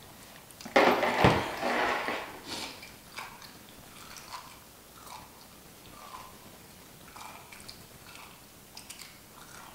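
Seafood boil being eaten close to the microphone: a loud crunching crack about a second in, then quieter chewing, small clicks and rustles.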